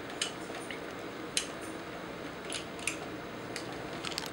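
About half a dozen small, sharp clicks and taps of Bandai Soul of Chogokin GoldyMarg figure parts being handled and fitted together against the clear stand.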